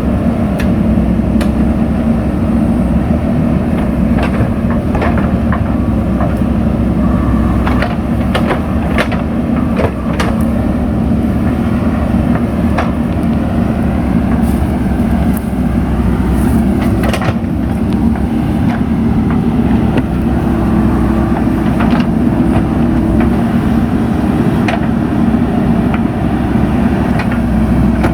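JCB 3DX backhoe loader's diesel engine running steadily under working load, with scattered short knocks and clicks over the drone.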